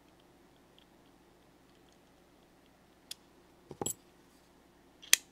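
Steel screwdriver bits handled against the magnetic bit holder of a Wera 838 ratcheting bit driver and set down on a tabletop: faint light ticks, then a sharp metallic click about three seconds in, a short cluster of clicks and knocks a little before four seconds in, and the loudest sharp click near the end.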